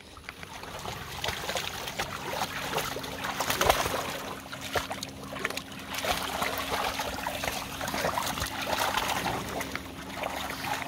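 Water splashing and sloshing irregularly as puppies play and wrestle in a pool, with a faint steady hum underneath.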